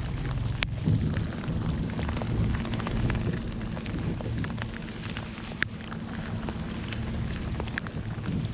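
Heavy rain falling, with scattered sharp ticks of drops striking close to the microphone over a low steady rumble.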